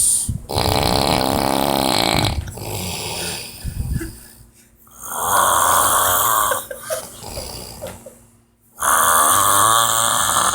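A person snoring loudly: three long snores about four seconds apart, with softer breaths between them.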